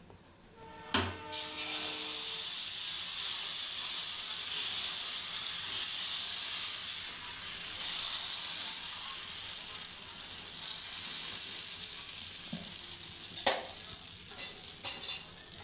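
Millet dosa batter sizzling steadily as it is poured onto a hot dosa pan and spread in circles with a ladle. A metal clink with brief ringing about a second in as the sizzle begins, and a few sharp knocks near the end.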